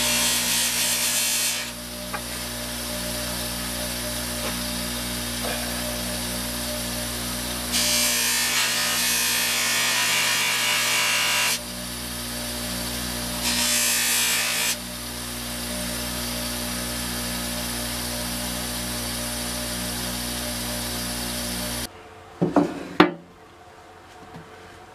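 A bench grinder fitted with a buffing wheel runs with a steady hum. There are three loud hissing stretches of about two, four and one seconds as a bar of green polishing compound, and then a small metal part, are pressed against the spinning wheel. About 22 seconds in the running sound cuts off, followed by a couple of short knocks.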